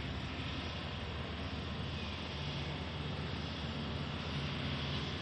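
Diesel engine of a Hyundai crawler excavator running steadily as it works its boom and bucket, a low engine drone under an even hiss.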